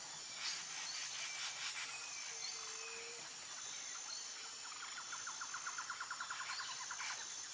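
Faint outdoor nature ambience: scattered short bird chirps over a low hiss, then a rapid trill of about nine pulses a second for the last couple of seconds.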